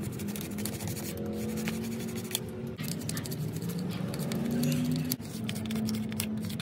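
Scrubbing and scratching by hand on an LS engine block deck, in quick irregular strokes, over a steady low hum.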